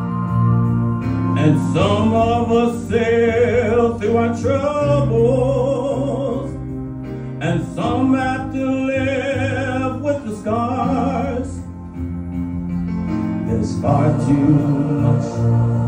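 A man singing long held notes with vibrato over a karaoke backing track. His voice drops out briefly near the middle and again about twelve seconds in, leaving only the backing track.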